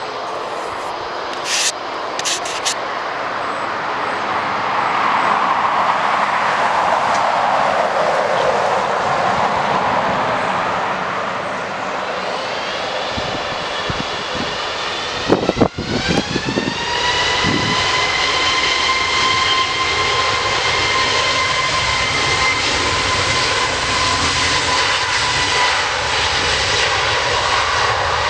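Airbus A321neo turbofan engines running. There is a broad roar at first, a few clicks about two seconds in, and a knock about halfway through. Then the engines spool up for takeoff in a rising whine that levels off into a steady, high whine at takeoff thrust.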